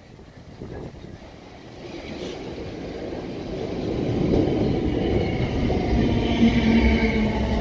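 South Western Railway suburban electric multiple unit running into the station, its rumble growing steadily louder as it comes alongside the platform, with a steady motor whine setting in about six seconds in.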